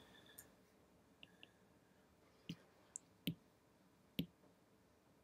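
Near silence with four faint, sharp taps about a second apart: a stylus tip tapping on a tablet's glass screen.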